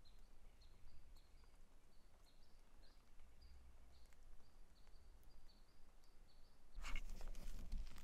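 A small bird's short, high chirps repeating about two or three times a second, faint. Near the end, boots begin crunching through dry brush and patches of snow.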